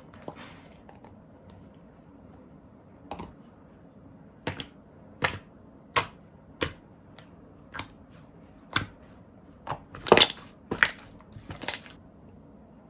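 Slime being pressed and stretched by hand, giving a series of sharp, irregular pops and clicks, about a dozen in all, coming closer together near the end.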